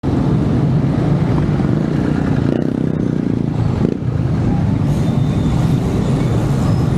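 Road traffic engines running close by, a steady low drone.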